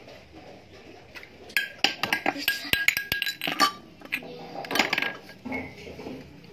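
Clattering clicks and knocks close to the microphone, a busy run from about one and a half seconds to nearly four seconds in, then a shorter burst about five seconds in.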